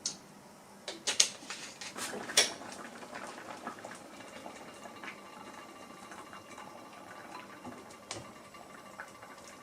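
Ice cubes clinking against a glass of peach soda made with Sprite, a few sharp clinks and knocks early on, then a soft fizzing of the carbonated drink with small scattered ticks.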